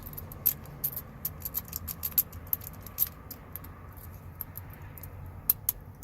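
A dimple rake being jiggled in the keyway of a FortXlock shutter lock, making rapid, irregular light metallic clicks, thick at first and sparser later. The lock is not hardened and gives way to raking.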